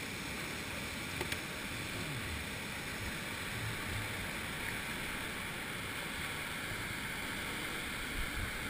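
Steady rushing roar of a whitewater waterfall pouring over rock ledges into a plunge pool.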